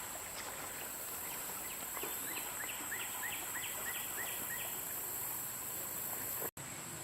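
A bird singing a run of about nine quick, evenly repeated chirps, over a steady high hiss of outdoor insect and creek background. The sound drops out for an instant near the end.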